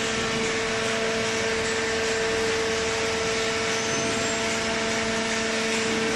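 Cardboard baling machine and its feed conveyor running, a steady machine hum with a constant mid-pitched tone over an even rushing noise.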